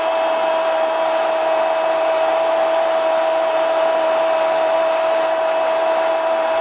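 Stadium crowd cheering a goal, with a loud steady held tone sounding over the roar.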